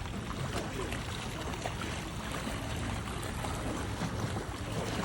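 Steady waterside noise of moving water, with a faint low hum underneath.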